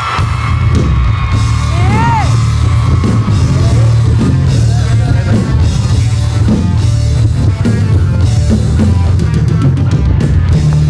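Loud rock music with a drum kit and a heavy, steady bass line.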